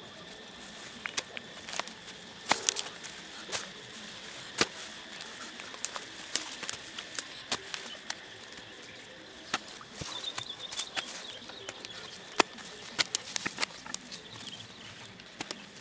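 Irregular knocks and thuds of a wooden-handled digging tool chopping into soil, roots and grass clods. Under them runs a steady high thin whine, with a short warbling chirp about ten seconds in.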